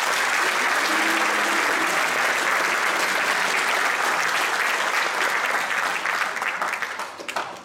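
Crowd applauding steadily, dying away near the end into a few scattered claps.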